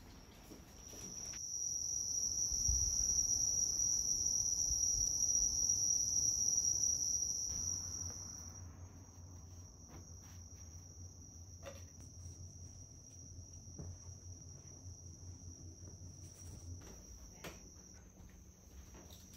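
Insects singing: a steady high trill, loud from about a second in until about eight seconds, then fainter. A few faint clicks come near the middle.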